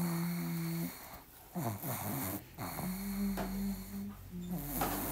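Pug making snoring noises through its short nose: a run of drawn-out, low, rumbling breaths, each up to about a second long, with short pauses between them.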